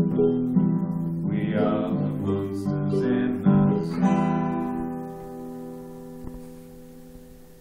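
Guitar strumming the closing chords of a song. The last chord, struck about four seconds in, rings on and slowly fades away.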